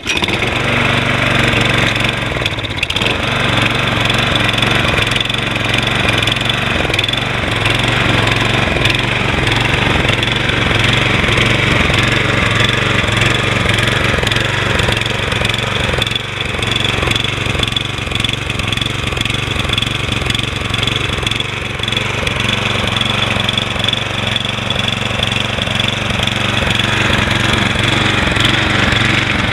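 Briggs & Stratton 7.0 gross torque engine on a Toro Recycler 20333 walk-behind mower running steadily just after a cold start, dipping briefly a couple of times.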